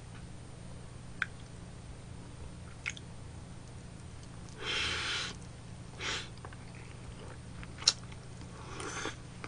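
A person chewing a large mouthful of cheese-topped lobster meat, with short wet mouth noises about 5, 6 and 9 seconds in. Sharp light clicks come about 1, 3 and 8 seconds in.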